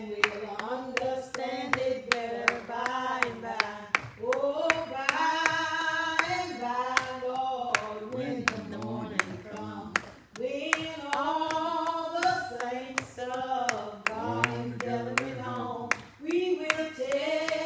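A woman singing a church song a cappella into a microphone, with long held notes, and hand-clapping keeping a steady beat.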